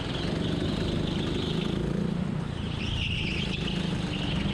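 Go-kart engine running steadily under way, heard from the driver's seat, with a higher whine that rises and fades twice.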